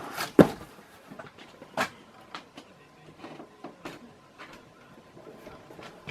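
Hard objects being handled and set down: one sharp knock about half a second in is the loudest, a second knock comes near two seconds in, and lighter clicks and taps follow.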